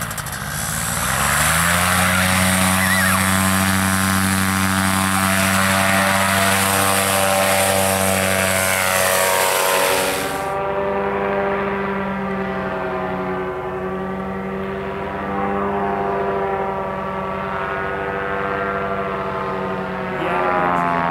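Paramotor engine and propeller revving up and then running at full power. About ten seconds in the sound turns more distant as the paramotor flies, its pitch slowly wavering up and down.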